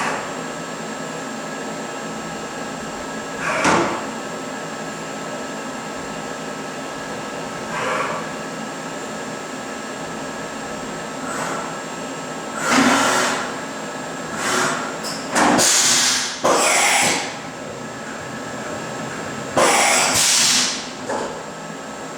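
Bridgeport vertical machining centre running with a steady hum and a thin high whine, cut by several short hissing bursts lasting up to about a second each.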